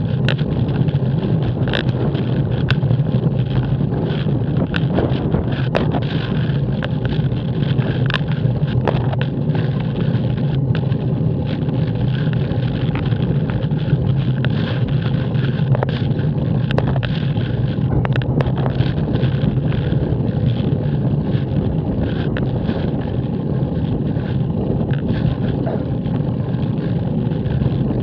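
Steady rumble of wind on a bicycle-mounted camera's microphone during a slow uphill ride, with scattered light clicks.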